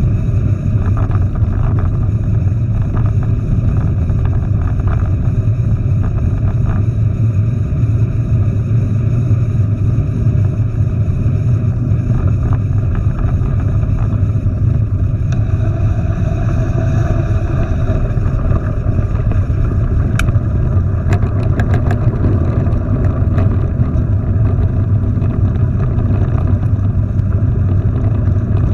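Steady low rumble with scattered clicks and rattles, more of them in the second half: wind and ride noise on a camera moving along a trail.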